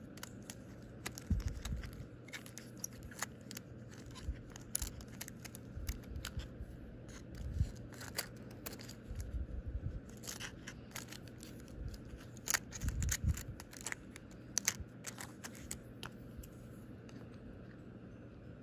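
Clear plastic false nail tips and their plastic storage case clicking and tapping as they are handled, in irregular sharp clicks with a few dull bumps.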